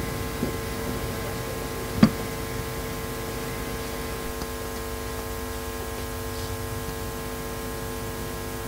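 Steady electrical mains hum with hiss, with one sharp thump about two seconds in.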